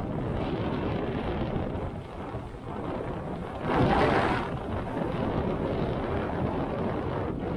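Steady rumbling wind noise inside a cable car gondola riding through a storm, with one louder surge of noise a little under four seconds in.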